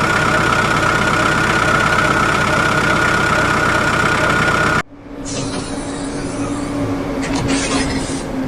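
Diesel engines of construction machinery running steadily. About five seconds in, the sound cuts abruptly to a different steady engine sound with a hiss.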